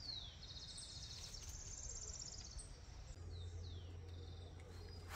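Wild birds calling: several short, high whistles that fall in pitch, and a fast pulsing high trill in the first half, over a faint steady hiss.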